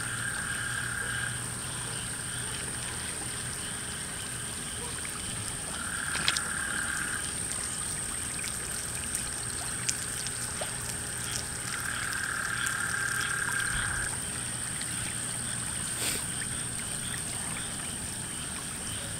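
Frogs calling in trills that recur about every six seconds, each one to two seconds long, over a steady high-pitched whine.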